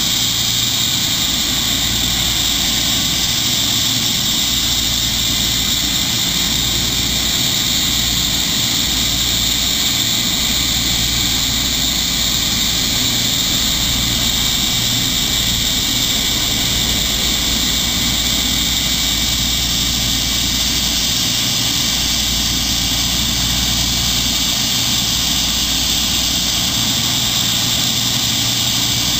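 Jet aircraft engines running steadily, a constant high whine over a low rumble, with no spool-up.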